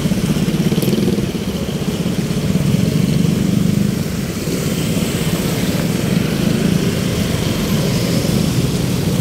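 A small motorcycle engine running steadily and close by, with a fast, even pulse.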